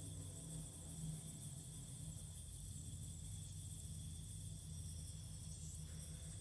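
A faint steady low hum with a fast, high-pitched chirring over it, the unexplained noise coming from a bottle.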